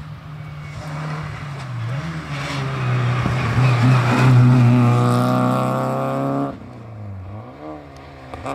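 Historic rally car engine at high revs as the car comes through, growing louder to a peak about halfway, then cutting off suddenly; a quieter engine note dips and rises again near the end.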